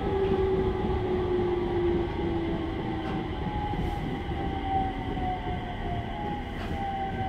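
Inside the cabin of a JR 701 series electric train running: the whine of its MT65 traction motors over a steady rumble of wheels on rail. The whine falls slowly in pitch as the train loses speed.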